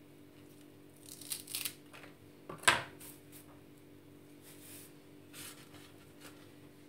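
Fresh parsley stems rustling as they are sorted and broken by hand over a stainless steel tray, with one sharp click a little under three seconds in.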